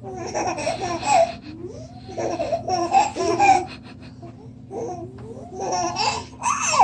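A little girl giggling in three bursts while she has the hiccups, the laughter coming in short, breaking bouts with brief pauses between.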